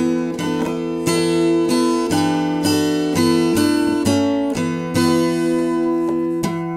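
Steel-string acoustic guitar in Nashville tuning, with a partial capo clamped across the A, D and G strings at the second fret, giving an open DADGAD-style tuning a tone up. Chords are picked and strummed and left ringing, a new chord struck about every half second.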